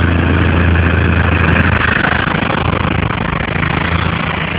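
Heavy rain pouring down in a steady, dense hiss, with a low steady hum underneath that fades about halfway through.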